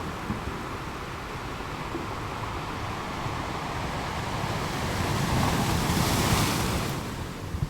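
Sea surf washing steadily, with one wave swelling and breaking loudest about three-quarters of the way through, hissing bright, then falling away.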